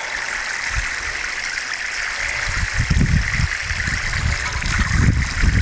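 Water pouring through a plastic watering can's rose onto soil in a planting hole, soaking it before a tree goes in: a steady hissing spatter. An uneven low rumble comes in about halfway through.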